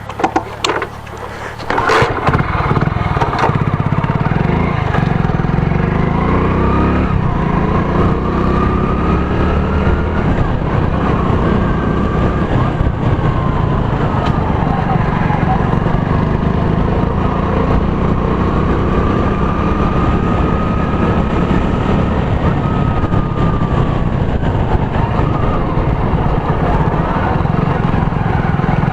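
Motorcycle on the move, picked up by an action camera's built-in microphone: a loud, steady low rumble of noise with the engine's tone slowly rising and falling. A few sharp clicks come in the first two seconds, before the noise jumps up about two seconds in.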